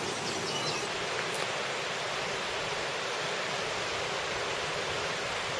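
Steady rushing of a river waterfall, an even hiss of falling water with no break.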